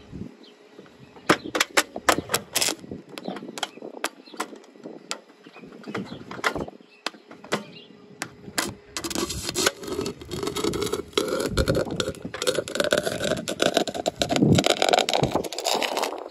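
Stick-welding arc from a 4043 aluminum electrode on a thin aluminum beer can. For the first several seconds there are scattered sharp crackles and clicks as the rod scratches to strike; from about nine seconds in the arc holds, a steady crackling sizzle with a hum that rises in pitch.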